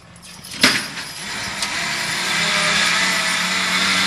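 A sharp knock about half a second in, then the hydraulic pump of a Collins dynamometer truck starts running and grows louder as a team of draft horses pulls the truck. The pump is what brakes the truck and holds tension on the hitch, and it runs with a steady low whine under a hiss.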